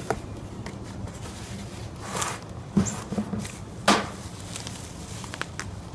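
A cardboard shipping box being unpacked by hand: rustling and scraping of cardboard and packing, with two sharp knocks about three and four seconds in, the second the loudest.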